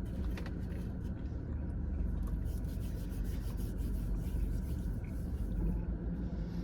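Steady low rumble, with light clicks and rustles scattered through it.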